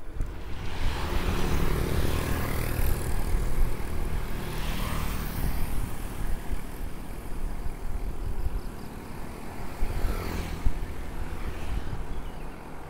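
Wind buffeting the microphone of a bicycle-mounted action camera, with tyre rumble from a mountain bike rolling on a paved road. It is a steady rushing noise with a few louder swells.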